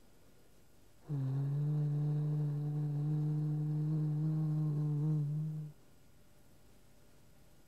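A low voice humming one long steady note, coming in about a second in, holding for about four and a half seconds with a slight waver near the end, then cutting off.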